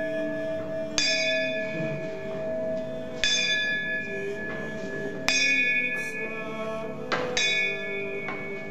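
A bell tolling slowly, struck four times about two seconds apart, each stroke ringing on and fading, over a steady held drone.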